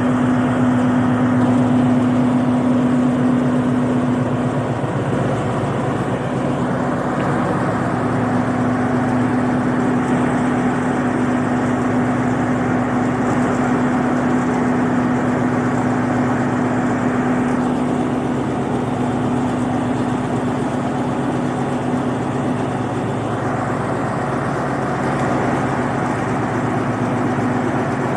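Alsthom diesel-electric locomotive idling at a standstill: a loud, steady engine drone with a steady hum over it.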